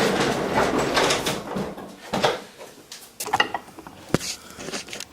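A wheeled shop machine being pushed across the floor: a steady rolling rumble for about the first second and a half, then a series of knocks and clicks as it is moved into place, the sharpest about four seconds in.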